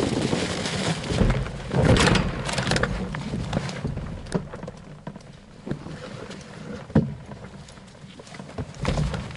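Wind rushing over the microphone of a hang glider touching down, fading as it slows. Then leafy crop plants rustle and brush against the pilot and the glider's base bar as he walks it through the field, with a few sharp knocks.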